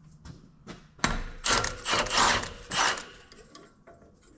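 Hand tools and metal engine parts clattering and scraping during an engine teardown. A cluster of loud bursts starts about a second in and lasts about two seconds, with lighter clicks around it.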